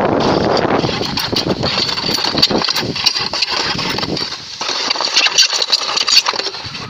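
Sled sliding and scraping over snow, with wind buffeting the phone's microphone: a deep rumble that thins after about a second into scattered scrapes and crackles.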